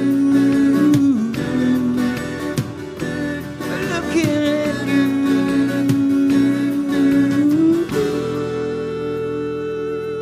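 Live soft-rock band music: a lead line holds long notes, sliding down and back up, then steps up to a higher held note near the end over steady drums and guitar.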